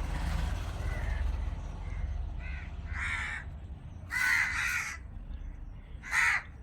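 A crow cawing several times: short, harsh calls, the loudest a double caw about four seconds in and another near the end, over a steady low background rumble.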